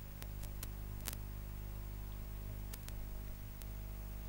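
Steady low electrical hum, like mains hum, with a handful of short sharp clicks at irregular moments, mostly in the first second and again around three seconds in.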